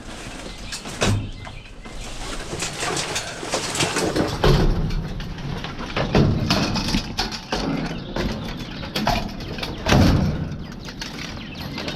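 Irregular knocks, scrapes and rustling with low thumps, from footsteps and the handling of discarded items.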